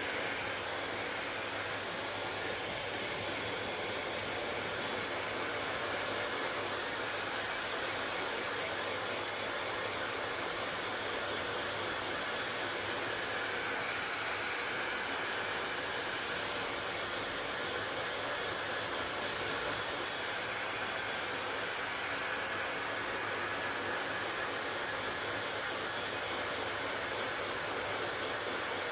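Hair dryer running steadily, a constant blowing hiss.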